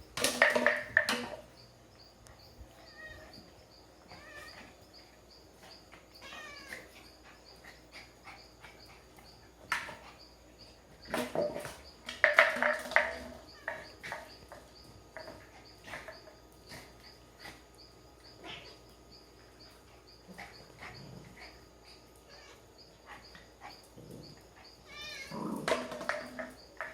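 Puppy and kitten play-fighting: long quiet stretches of light scuffling broken by a few short bursts of animal vocal sounds, about a second in, in the middle, and again near the end.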